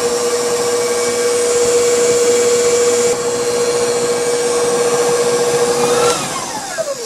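Stand mixer motor running steadily with a held whine as its flat beater creams softened butter in a metal bowl. About six seconds in it is switched off and winds down, its whine falling away.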